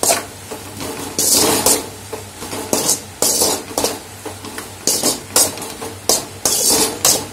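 Metal slotted spatula scraping and clanking against a metal kadai as chopped vegetables and prawns are stir-fried, in irregular strokes about one every second.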